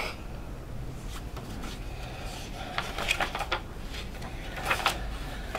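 Soft rustling and a few light taps of a paper booklet being handled and its pages turned.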